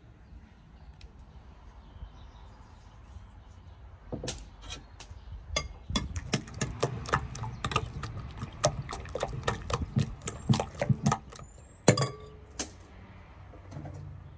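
Metal spoon beating raw eggs and chopped herbs in a glass bowl, clinking rapidly against the glass at about four strikes a second. The beating starts about four seconds in, with one louder clink near the end.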